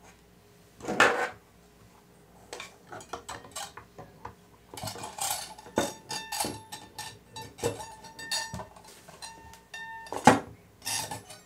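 Plastic soap cutter with metal handle and metal guide being pulled across a counter and set in place: a run of knocks, clicks and rattles, with a faint metallic ringing in the middle and a sharp knock near the end.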